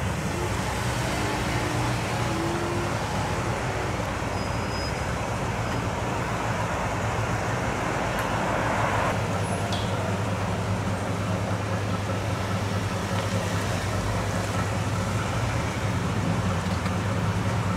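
Late-1940s Ford convertible rolling slowly past at low speed, its engine running low and steady, mixed with the even sound of street traffic.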